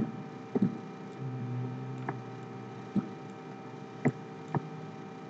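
A handful of short, soft clicks from a computer mouse and keyboard, spaced irregularly, over a steady electrical hum.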